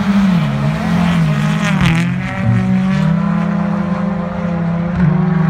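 Rally car engines revving up and down through snowy corners. The engine pitch dips and climbs over the first few seconds, with a loud rush about two seconds in as a car passes close, then holds a steadier note.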